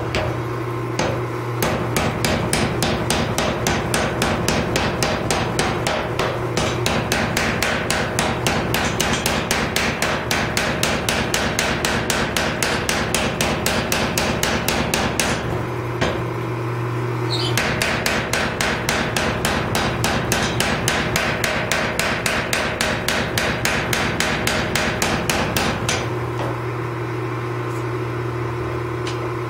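Power hammer pounding a glowing Damascus steel billet with a rapid, even run of blows. The blows stop about halfway through for a second or two and again near the end, leaving only the machine's steady motor hum.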